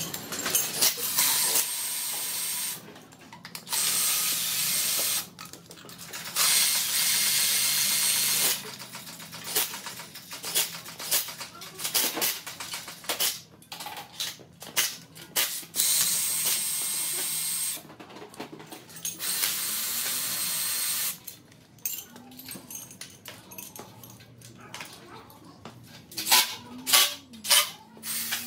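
Air ratchet running in five hissing bursts of one to three seconds each, driving bolts. Sharp metal clicks and clinks of chain and tools fill the gaps between bursts.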